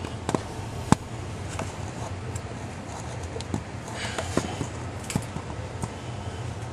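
A few sharp knocks and clicks of things being handled, the loudest about a second in, with a brief rustle around four seconds, over a steady low hum.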